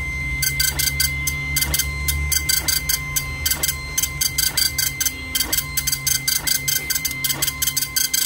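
Epson dot-matrix impact printer printing a page: the print head's pins strike in quick buzzing bursts as it sweeps each line, with the paper stepping on about once a second, over a steady low hum.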